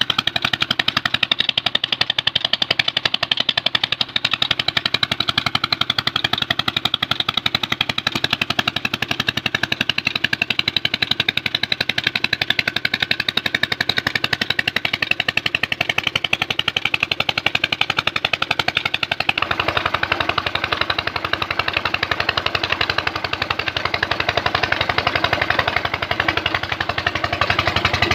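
25 HP Petter diesel engine driving a tubewell pump, running steadily with a fast, even chugging beat. About two-thirds of the way through, the rush of pumped water pouring out into a concrete channel joins it.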